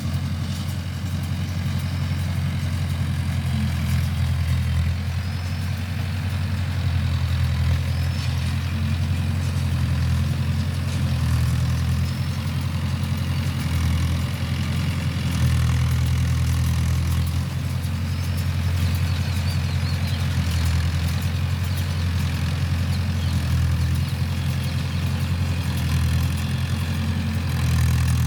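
Mahindra tractor's diesel engine running steadily at a low, even drone that swells and eases slightly every few seconds.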